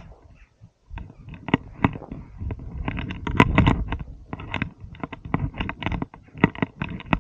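Footsteps crunching and scraping on loose stones and scree down a steep slope: an irregular run of sharp crunches, nearly quiet for the first second, with a low rumble underneath.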